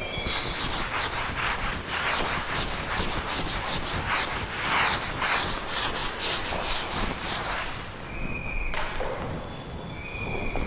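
Rapid scratching strokes of a teacher writing on a board, several strokes a second, dying away about eight seconds in.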